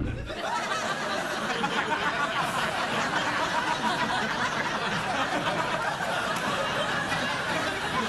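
Studio audience laughing, a steady crowd laugh.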